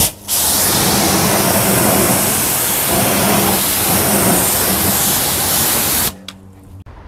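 Pressure washer jet spraying water onto a car tyre and alloy wheel, rinsing off the foamed wheel and tyre cleaner. It is a loud, steady hiss that starts just after the opening and stops abruptly about six seconds in.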